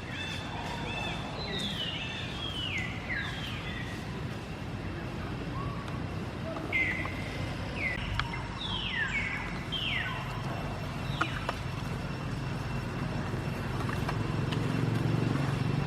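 Short high chirps, each falling quickly in pitch, come in small bunches over a steady low hum that grows louder near the end.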